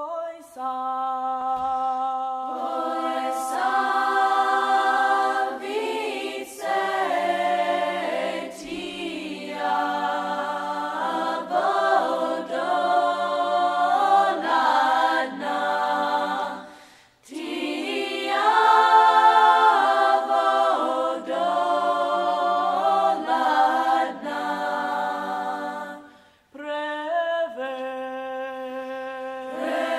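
Unaccompanied voices singing a slow song in harmony, holding long chords. The singing breaks off briefly twice, past halfway and again later.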